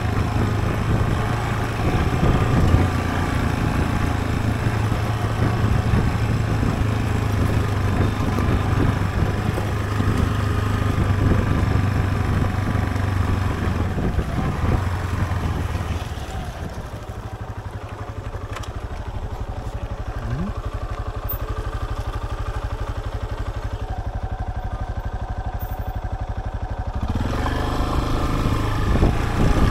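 Yamaha Serow trail bike's single-cylinder four-stroke engine running while under way, with road and wind noise. About halfway through it settles to a quieter, steady run for around ten seconds, then revs up again near the end.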